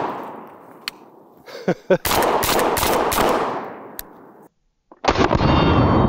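Panzer BP-12 12-gauge semi-automatic shotgun firing double-aught buckshot. The echo of a blast fades, a second loud shot about two seconds in rings out and dies away, and after a brief cut to silence another loud shot comes about five seconds in.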